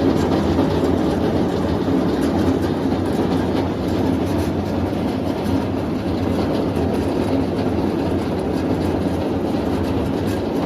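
Charcoal powder crusher (grinding mill) running steadily, a dense mechanical din with many small clicks.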